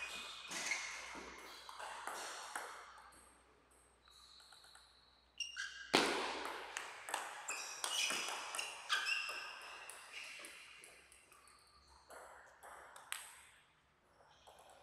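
Table tennis ball clicking off rubber paddles and the table in quick rallies, each hit a short sharp tap with a brief ringing ping. The loudest single crack comes about six seconds in.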